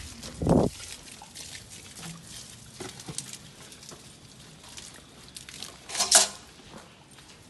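Hand scooping of wet sand and mortar: short scrapes and knocks as a small pan digs into the pile, with a louder scrape about six seconds in.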